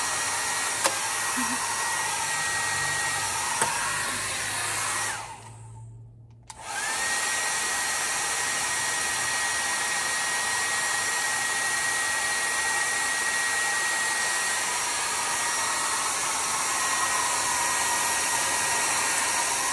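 Handheld hair dryer blowing with a steady rush of air and a thin whine. It is switched off about five seconds in and back on a second or so later, then runs steadily again.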